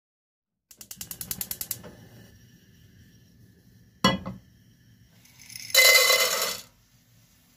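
Lumps of starch poured into an empty nonstick pot, a loud rattling rush lasting just under a second near the end. Before it, a quick run of clicks about a second long near the start and a single sharp knock about four seconds in, as of the pot set down on the stove grate.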